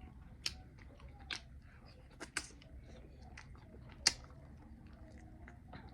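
Close-up chewing of buffalo chicken wings: wet mouth clicks and small crunches at irregular moments, the sharpest about four seconds in.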